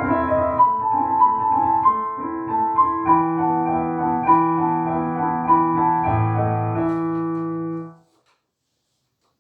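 Solo piano playing a melodic classical passage over chords, with a low bass note held from about three seconds in; the music cuts off abruptly near the end.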